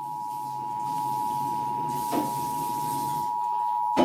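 Emergency Alert System attention signal: a steady two-tone alert (853 and 960 Hz) held unbroken over a light hiss, marking the start of a broadcast severe thunderstorm warning. A short click comes near the end.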